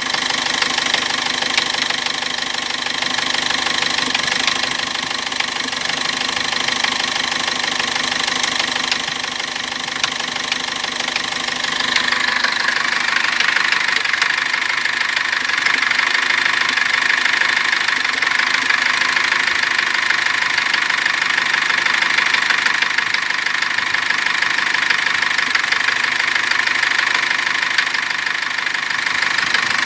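Cummins turbo diesel engine running with a rapid, steady knock; the sound turns brighter about twelve seconds in. The knock came on with the engine briefly binding, and the owner stripped the engine without finding its cause.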